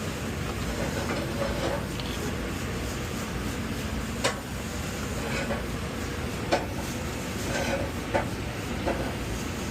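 Steady machinery noise with a few short, sharp clicks and knocks, spaced a second or two apart, from parts and tools being handled during wiring work on a freezer controller.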